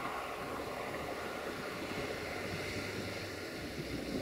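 A Romanian 060-DA (LDE2100) diesel-electric locomotive approaching from a distance, its Sulzer diesel engine running as a steady low rumble under a noisy hiss.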